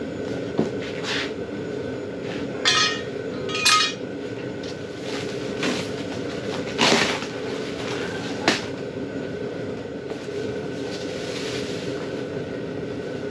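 A large cardboard shipping box being opened and unpacked: two short rips of tape or cardboard a second apart, then scraping, rustling and a few sharp knocks as the plastic-wrapped rooftop tent is pulled out, over a steady background hum.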